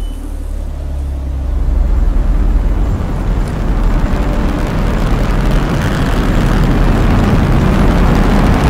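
A deep, steady rumble under a rushing noise that swells and grows louder, like a sound-design drone in a film.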